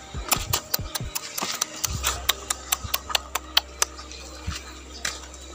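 A quick, irregular run of sharp clicks, about three to five a second, over a low steady hum; the clicks stop about four seconds in.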